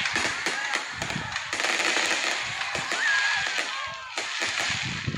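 A fireworks display: dense crackling from many small bursts, with low booms mixed in.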